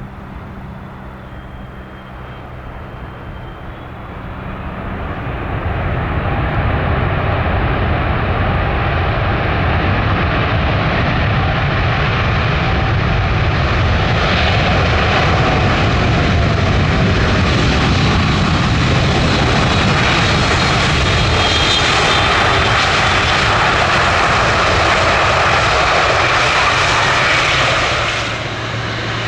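Jet engines of a large airliner, starting moderate, growing much louder over a couple of seconds, then holding a loud, steady jet noise that brightens as it comes closer, and dropping off abruptly near the end.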